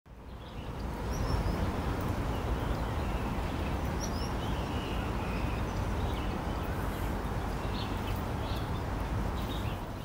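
Steady low rumble of city background noise and distant traffic, fading in at the start, with faint short high bird chirps scattered through it.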